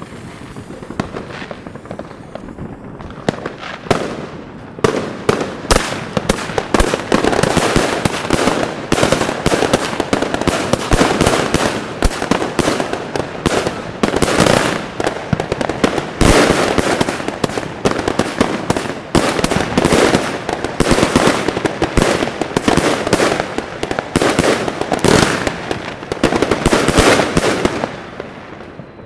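Consumer fireworks cake firing a rapid, continuous barrage of shots with sharp cracks and bangs. It starts with a few scattered pops and builds to a dense run about four seconds in, easing off near the end.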